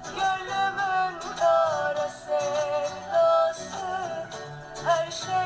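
Music from a Turkish radio station: a singing voice with a bending, wavering melody over steady low accompaniment.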